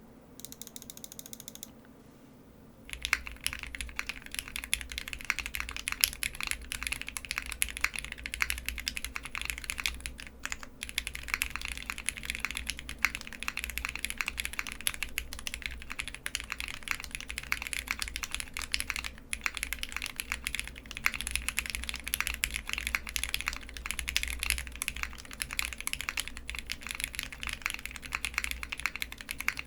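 Fast, continuous typing on a custom Mr. Suit TKL mechanical keyboard. The keyboard has SP-Star NaNa switches, an aluminium plate, ePBT keycaps and no foam dampening. The dense keystroke clatter starts about three seconds in, after a quiet opening.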